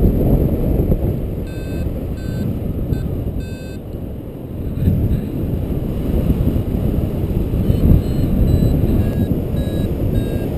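Airflow rushing over the microphone in flight, with a paragliding variometer giving short pitched beeps, roughly one or two a second, in two spells: its signal of climbing in rising air.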